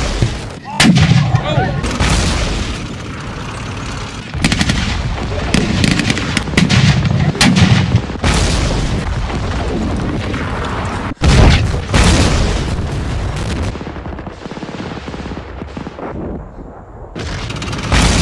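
Reenactment battle firing: rifle and machine-gun blanks going off in quick strings, with several louder pyrotechnic blasts set off among them, the biggest a little after a second in, around the middle and at the end.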